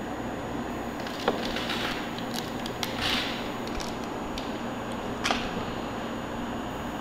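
Steady low hum and hiss of background noise, broken by a sharp click a little over a second in, a short hissy rustle about three seconds in and another click about five seconds in.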